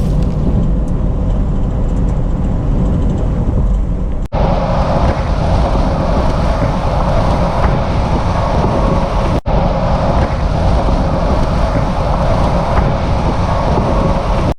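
Steady road and engine noise of a car at highway speed, heard from inside the cabin: a continuous low rumble with a hiss above it. It cuts out for an instant twice, about four and nine seconds in, and is a little brighter after the first break.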